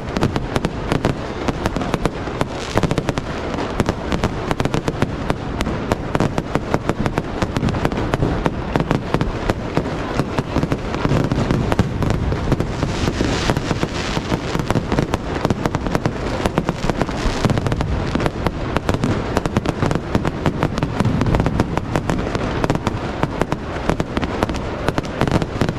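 Fireworks display going off without a break: a dense barrage of bangs and crackling, many reports each second.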